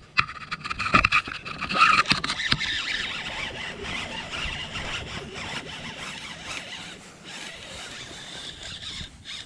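Fishing reel cranked fast as a hooked bass is reeled in: sharp clicks and a squealing whirr for about the first two seconds, then a steadier high hiss.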